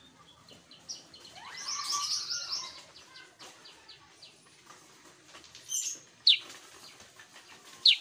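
Caged kutilang sutra bulbul chirping and chattering. A busy run of song comes about two seconds in, and two loud, sharp, falling whistles come near the end.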